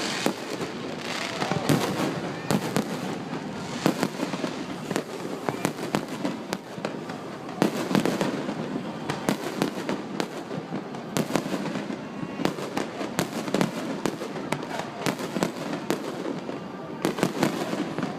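Fireworks display going off in a dense, continuous barrage: sharp bangs several times a second over a steady crackle, with no let-up.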